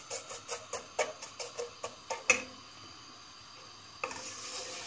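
A wooden spoon stirring and scraping thin vermicelli as it toasts in oil in a non-stick pot, in quick regular strokes, about four a second, over a light sizzle. A sharper knock comes a little over two seconds in, then a quieter stretch before the stirring picks up again near the end.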